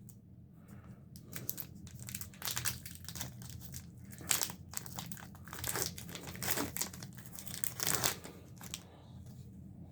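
Wrapper of a hockey card pack crinkling irregularly as it is torn open and handled, with the crackling dying away about a second before the end.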